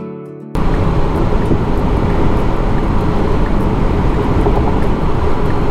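Steady tyre and wind noise inside a Tesla Model X cabin cruising at about 75 mph. A held musical chord cuts off sharply about half a second in, when the road noise starts.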